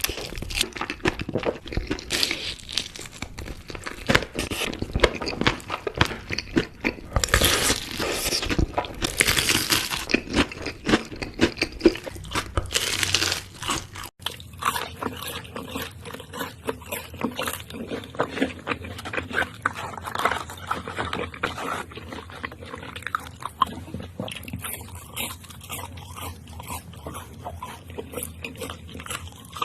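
Close-miked biting and chewing of crunchy fried food: dense crisp crunches with several louder bites. About halfway through there is an abrupt cut, after which the chewing is softer and duller.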